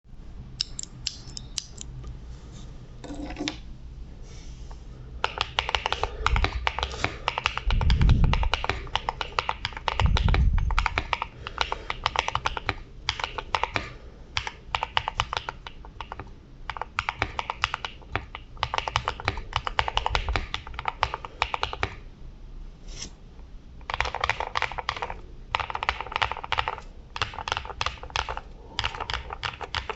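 Mechanical keyboard with lubed Akko Rose Red linear switches, knockoff GMK keycaps, Holee-modded stock stabilizers and tempest and PE foam mods, typed on in fast bursts with short pauses. Two deeper thumps come about eight and ten seconds in.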